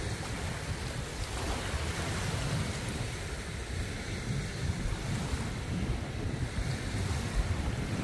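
Wind buffeting the microphone, a steady rumble that rises and falls in gusts.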